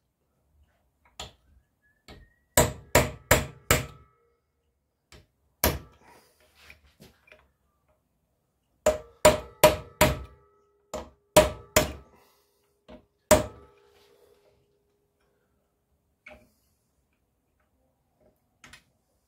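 Hammer blows on a centre punch against the steel can of an ABS pump motor, each strike ringing like metal. There are single taps and two runs of four quick blows, with pauses between, and a few lighter taps near the end.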